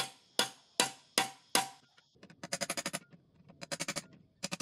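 Five hammer blows on a chisel driven against a sheet-metal instrument canister, about two and a half a second, each with a short metallic ring. Then two short runs of rapid metallic clicks as the can's seam is worked open.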